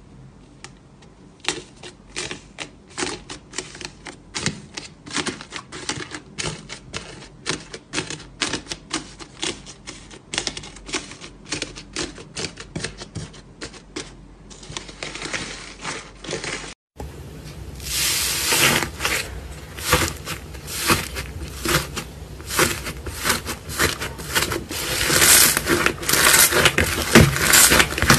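Crunchy pink slime with a dry, cracking crust and foam beads being pressed and broken up by fingers, giving a quick, irregular run of crisp crackles and clicks. A little past halfway, after a brief cutout, a glossy red slime squeezed and poked by hand gives louder, denser clicks and pops.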